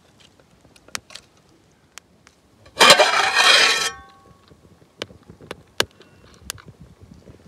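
An aluminium pan lid is scraped and clattered off the pan for about a second, a few seconds in, ending with a brief metallic ring. Scattered small clicks and ticks sound around it.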